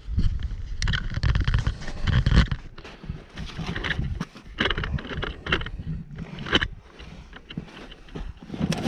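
Hand-work noise on the sawmill's blade housing: short knocks, clicks and scrapes of metal parts and tools as the drive-belt tensioner is loosened for a blade change. A low rumble runs through the first two and a half seconds.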